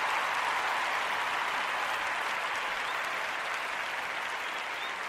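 Applause, a steady dense clatter that slowly fades out.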